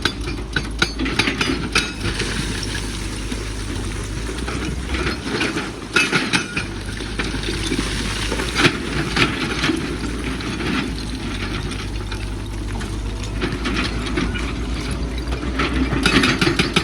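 Excavator's diesel engine running steadily under load, with rocks clinking and knocking against the steel bucket as it digs out stone. The knocks come in quick succession near the end.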